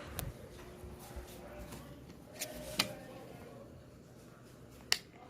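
Four sharp clicks of a ceiling fan's wall control switches, the last about five seconds in, over the faint steady hum of a Venti-Delta Paraty ceiling fan running at low speed.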